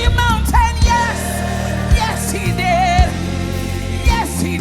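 Live gospel music: a band holding low chords with a drum hit about once a second, under wordless sung runs with vibrato.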